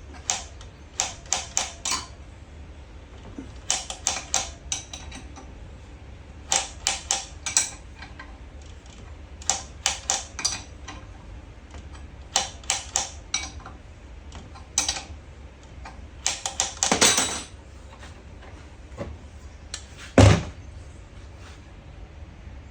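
Sharp clicks of metal tools working on metal parts, coming in quick groups of three to five with short gaps between, over a low steady hum. A longer scraping rattle comes near the three-quarter mark, then one heavier thud.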